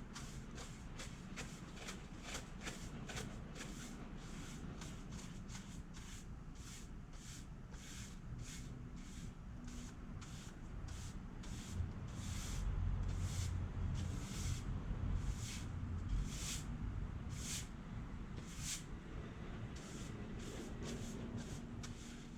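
A brush rubbing over a wooden wall in a long series of short swishing strokes, about three a second at first and slower and more spaced out later, with a low rumble in the middle.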